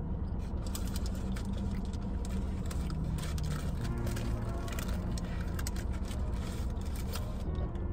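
Paper burger wrapper rustling and crinkling, with chewing, as a burger is eaten over a steady low hum inside the car.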